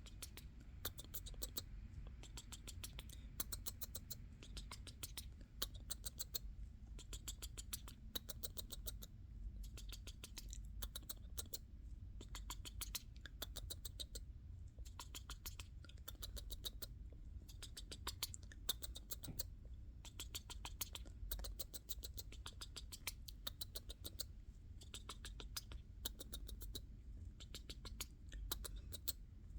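Kissing sounds with a quaker parrot: runs of quick, short smacking clicks, several a second, broken by brief pauses.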